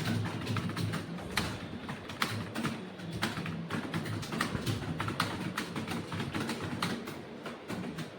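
Computer keyboard typing: fast, irregular key clicks, several a second, over background music.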